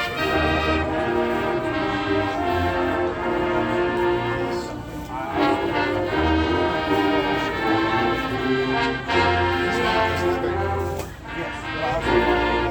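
High school marching band brass playing slow, held chords in long phrases, with short breaks about five seconds in and again near the end.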